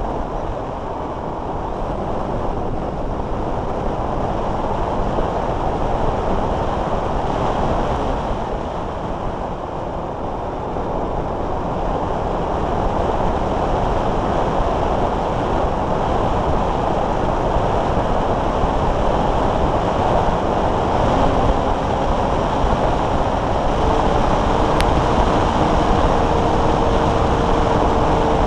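Wind rushing over an on-board keychain camera on a Multiplex Blizzard RC hotliner in flight: a steady roar of airflow noise that grows louder about halfway through. In the last few seconds a faint, steady high whine comes in underneath.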